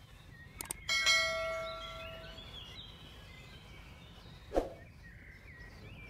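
A single metallic strike about a second in, ringing like a small bell with several clear tones and fading out over about a second and a half. Faint bird chirps continue underneath.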